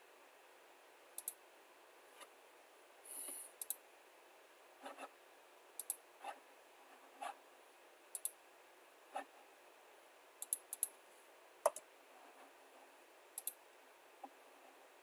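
Computer mouse clicking at irregular intervals, single clicks and quick double clicks, over a quiet background, with a short scratchy sound about three seconds in.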